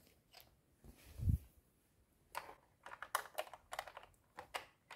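Faint plastic clicks and taps as hands handle a toy remote-control car and press on its chrome plastic engine piece, after a dull thump about a second in.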